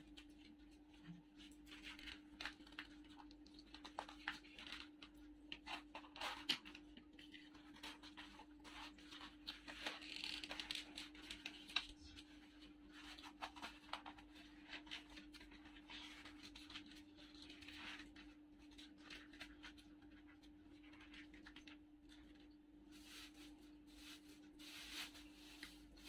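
Faint scraping and light clicks of a metal spoon against a small paper cup, scattered throughout, over a steady low hum.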